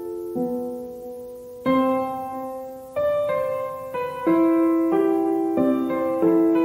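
Gentle background piano music: notes and chords struck about once a second, each left to ring and fade.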